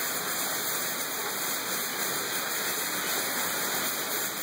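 A steady, unbroken rushing hiss, like running or spraying water, that stays even throughout.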